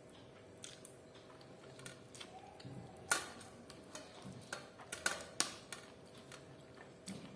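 Close-miked eating sounds of chicken fry and rice: a scattering of sharp clicks and wet smacks. The loudest come about three seconds in and twice around five seconds in.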